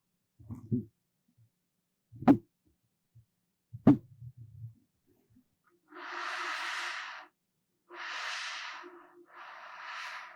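Close-miked ASMR trigger sounds: a few soft low thumps and two sharp taps, then three long, breathy swishing sounds about a second each.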